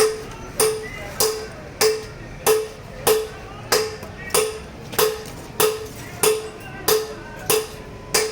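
Hammer blows on metal struck at a steady pace, about three every two seconds, each with a short ringing tone.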